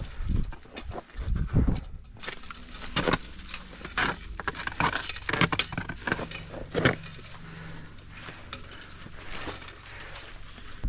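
Crampon points scraping and clicking on granite and ice, with metal climbing hardware jangling, as a climber moves down rock. The clicks and scrapes come irregularly and thin out in the last few seconds.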